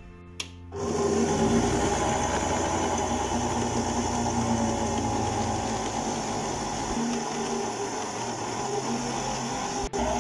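Electric stand mixer starts with a click just under a second in, then runs steadily. Its flat beater works a crumbly flour-and-butter mix into pie-crust dough as cold water is added.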